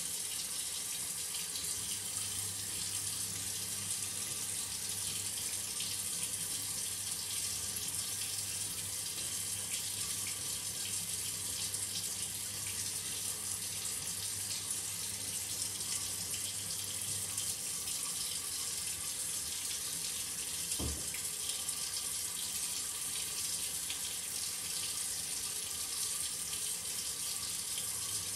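Shower water running steadily, a continuous hiss of spray falling in the stall. A faint low hum underneath stops a little past halfway, and there is a brief low thump near the end.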